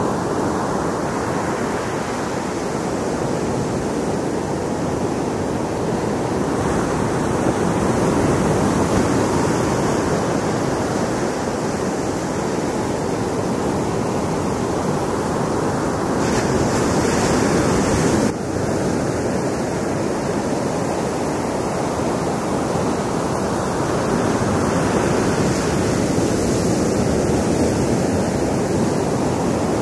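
Ocean surf breaking and washing up a sandy beach: a steady rushing wash of waves.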